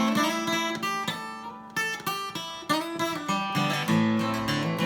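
Acoustic guitar playing alone between sung verses of a folk ballad, a run of picked and strummed notes left ringing.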